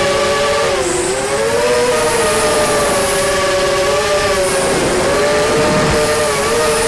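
Quadcopter's brushless motors (SunnySky 2204 2300kv) and 5-inch props whining in flight, the pitch dipping and climbing back with throttle about a second in and again near five seconds.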